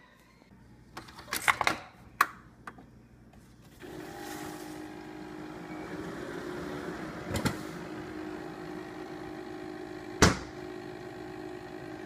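A few clicks and knocks, then a Keurig single-serve coffee maker starts brewing about four seconds in: a steady pump hum with a hiss of hot water. A sharp knock about ten seconds in is the loudest sound.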